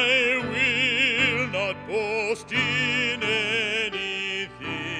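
A man singing a hymn solo with wide vibrato, holding several long notes.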